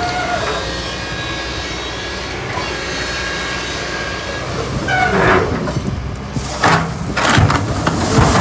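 Excavator's diesel engine running steadily. From about five seconds in, louder irregular knocks and scraping come in over it.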